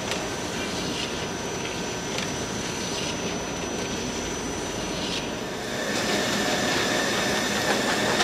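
Signature folder gluer running: a steady mechanical hum of belts and rollers with a thin high whine over it, growing louder about six seconds in.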